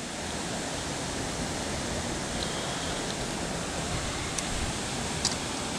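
Steady, even rushing background noise with no pitch to it, with a couple of faint ticks near the end.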